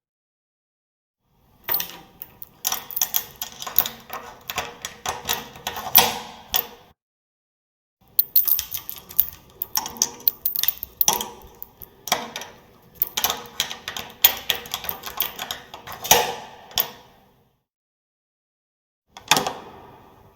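Door handle and latch being worked, a dense run of clicks and rattles in three spells: about five seconds, then about nine seconds, then a short one near the end.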